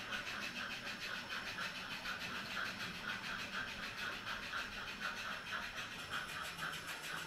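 HOn3 scale model train running along the layout, a steady rhythmic beat of about three to four pulses a second.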